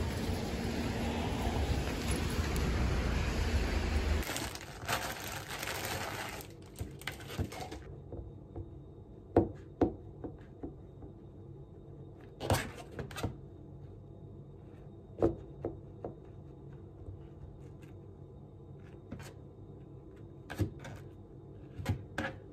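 Steady outdoor background noise for the first few seconds. Then, in a quiet kitchen, a knife cuts the crusts off a thick slice of white bread, its blade tapping sharply now and then on a plastic cutting board.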